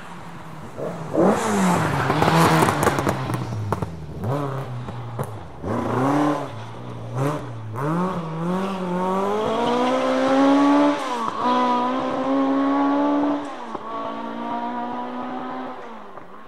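Rally car engine working through a chicane double turn: the revs drop and pick up again several times as it brakes and accelerates between the turns, with a loud, noisy rush as it passes close about a second in. Then the engine note climbs steadily as it accelerates away, dips briefly twice, and fades near the end.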